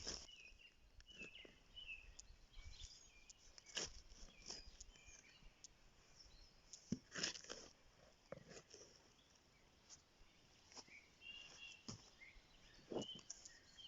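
Faint outdoor ambience: small birds chirping now and then, with occasional faint clicks.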